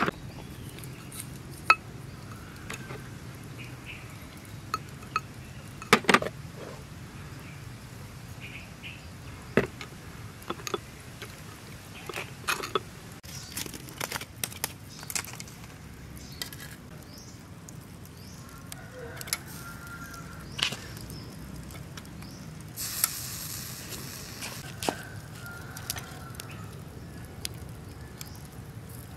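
Scattered light clicks and clinks from a metal spoon and small dishes, then from charcoal being poked with a stick, with a brief hiss about 23 seconds in.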